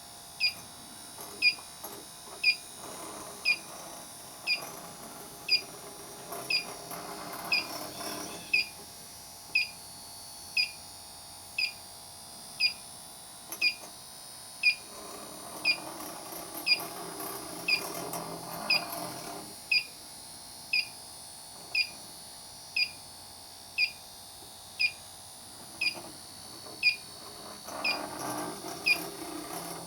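Electronic refrigerant leak detector (Inficon Tek-Mate) beeping at a steady rate of about one short, high chirp a second, with no speed-up, as its probe is swept over a dehumidifier's coil on low sensitivity. Faint rustling noise comes and goes behind it.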